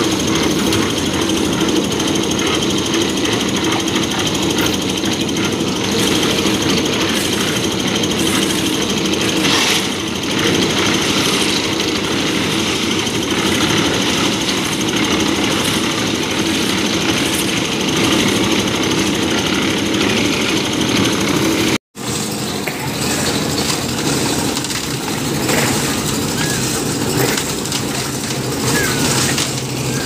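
Portable drum concrete mixer running steadily, its engine and turning drum making a continuous mechanical noise that cuts out for an instant about two-thirds of the way through.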